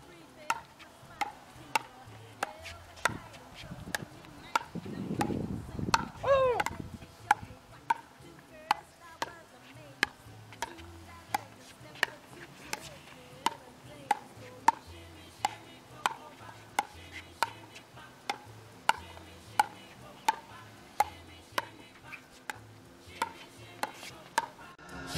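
Pickleball paddles striking a plastic pickleball in a steady volley rally: a sharp pock about every two-thirds of a second as the ball goes back and forth.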